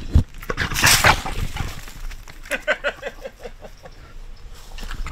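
Dry brush and palmetto crackling and snapping, then a quick run of short grunts from a trapped wild boar hog.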